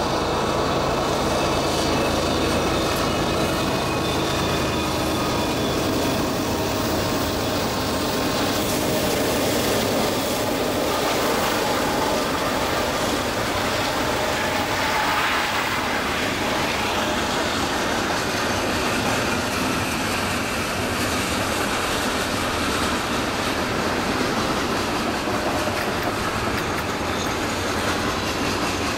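Freight train passing close by: the diesel locomotives' engines running as they go past at the start, then a long string of freight cars rolling by with wheels clacking over the rail joints and a brief squeal of wheels about halfway through.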